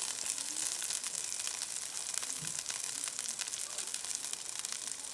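Halibut fillet pan-frying in hot oil: a steady sizzle with fine, rapid crackling spatter.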